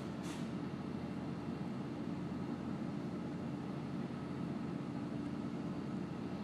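Automatic car wash heard from inside the car's cabin: a steady, muffled rush of water spray on the car with the low hum of the wash equipment.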